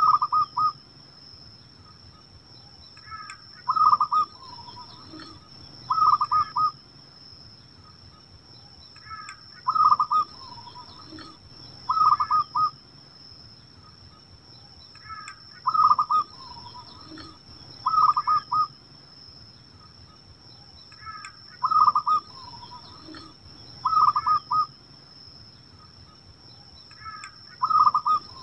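Zebra dove (perkutut) cooing: a phrase of soft staccato coos repeated about every six seconds, five times.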